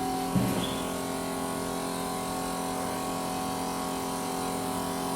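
2 kg DSP mini melting furnace left running after the melt with its heating off, a steady electric hum of several fixed tones as its cooling water keeps circulating while the unit cools. A brief knock sounds about half a second in.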